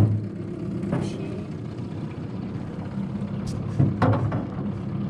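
Old 4 hp Johnson two-stroke outboard motor running steadily, pushing an aluminium Grumman canoe.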